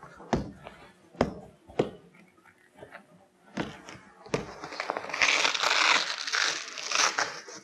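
Velcro (hook-and-loop) strip on a convertible soft top's rear curtain being pulled apart: a rasping rip lasting about two and a half seconds in the second half. A few sharp clicks come before it as the curtain is worked loose.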